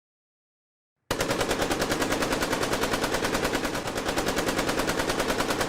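AK-47 assault rifle (7.62×39 mm) firing a long burst on full automatic, about ten shots a second, starting suddenly about a second in.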